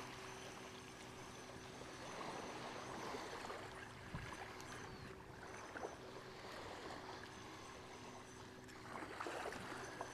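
Faint small waves washing on a sandy shoreline, with a few soft clicks.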